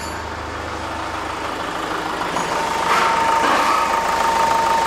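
Hyundai Grand Starex's D4CB 2.5-litre common-rail turbodiesel idling steadily after a quick start, during an injector back-leak test. A steady high whine joins the engine sound about two to three seconds in.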